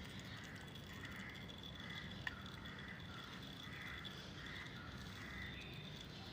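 Faint background with soft, distant bird calls repeating every second or so, and a single sharp click a little over two seconds in.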